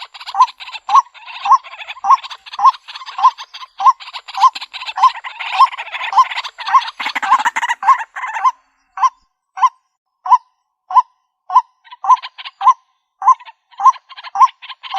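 White-breasted waterhen calling: a steady run of short, loud 'ruak' notes, about two a second, over harsh raspy chatter. The chatter drops out for a few seconds past the middle, leaving the bare repeated notes, then returns near the end.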